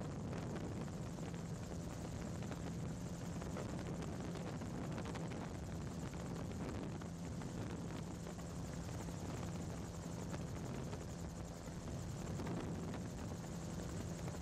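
MT-03 gyroplane in flight, heard from on board: its engine and pusher propeller make a steady drone, with wind rush over it.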